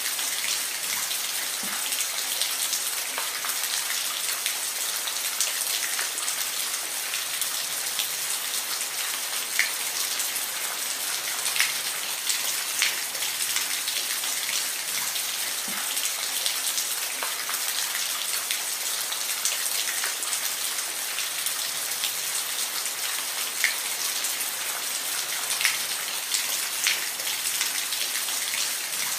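Steady rain falling, an even hiss with individual drops ticking and splashing sharply here and there.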